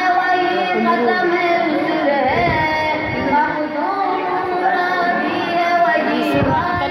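A boy singing an Urdu naat, a devotional song in praise of the Prophet, solo into a microphone, in long held notes that glide from pitch to pitch.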